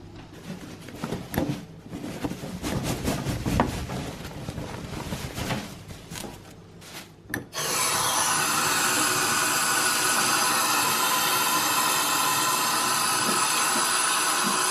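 Irregular rubbing and knocking handling sounds, then, about seven and a half seconds in, a kitchen tap comes on and runs steadily into a stainless steel sink, splashing over watercress being rinsed by hand.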